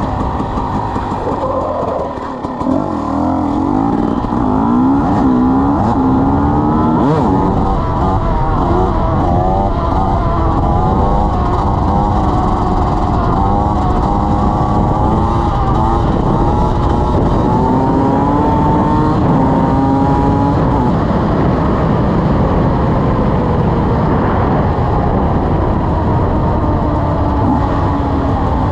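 KTM 300 EXC Six Days single-cylinder two-stroke dirt bike engine running hard, its revs climbing and falling again and again as it is ridden through the gears, with a few longer stretches held at steady revs.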